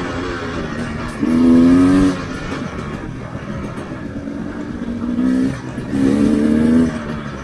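Dirt bike engine running with throttle bursts: it revs up loudly about a second in, again briefly around five seconds in, and once more for nearly a second near the end, dropping back to a lower note in between.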